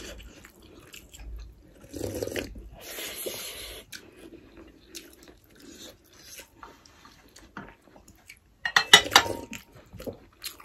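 Close-up eating sounds: chewing and mouth noises, with scattered clicks of a spoon and fingers against the plates. A cluster of sharper, louder clicks comes a little before the end.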